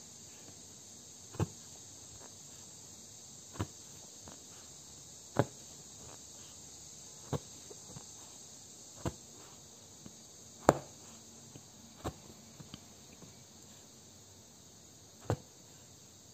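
Punch needle pushed through fabric drawn tight in an embroidery hoop, a sharp tap with each poke about every one and a half to two seconds, over a steady faint hiss.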